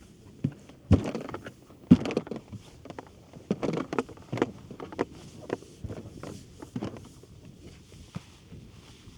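Irregular knocks and thumps with short splashy swishes from the ORU Lake folding kayak and its paddle being handled, loudest about one and two seconds in.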